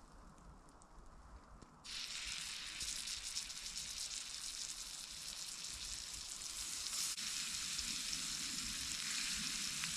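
Beef patties frying in a hot pan: quiet at first, then a sudden steady sizzle starts about two seconds in, as the patties hit the pan.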